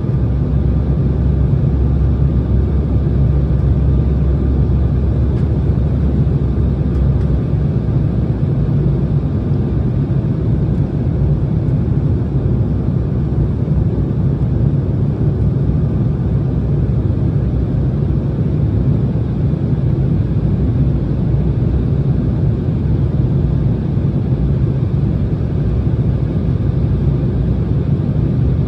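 Steady cabin noise of an Embraer E170 airliner in flight: a low rumble of airflow and its GE CF34 turbofan engines. The deepest part of the rumble drops away about seven seconds in.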